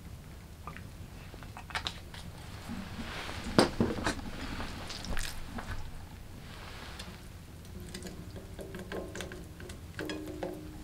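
Cooking handling at a small wood stove: clicks and knocks of an aluminium pan and a plastic squeeze bottle as oil goes into the pan, with a few brief hissy stretches. Near the end, raw meat is pressed wetly into the pan.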